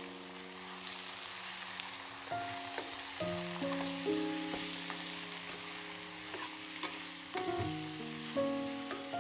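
Food frying in hot oil in a pan: a steady sizzle, with the clicks and scrapes of a utensil stirring it. Background music with held chords that change every second or two plays over it.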